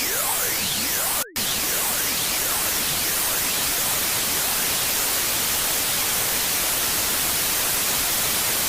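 Harsh electronic noise: loud static hiss with many pure tones sweeping up and down across one another. The noise cuts out for an instant about a second in, and after that it is mostly static with fainter sweeps.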